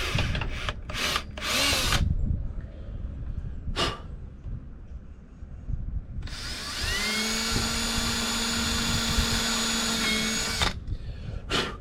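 Power drill running: a few short bursts, then one steady run of about four seconds that speeds up at the start and winds down at the end, as holes are made for the mounting screws of a boat fishfinder.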